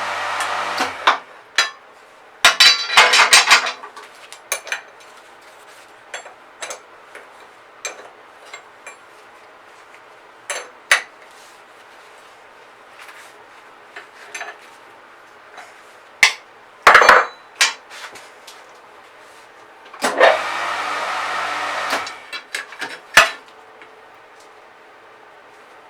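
Steel strip being bent on a hand-operated 'snail' scroll-bending machine for cold forging: scattered metal clanks and knocks, some ringing, with two stretches of steady noise and a low hum, briefly at the start and for about two seconds later on.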